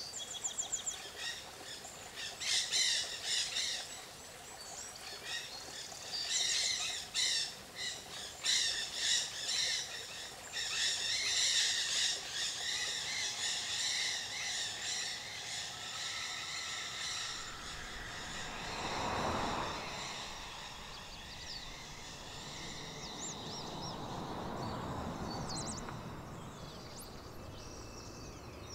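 Songbirds chirping and trilling in quick repeated notes through the first half, then traffic passing twice, each pass swelling and fading.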